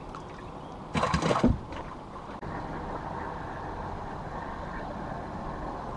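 A brief clatter of knocks about a second in. A little after two seconds an electric trolling motor starts suddenly and runs on as a steady low hum with a faint thin whine.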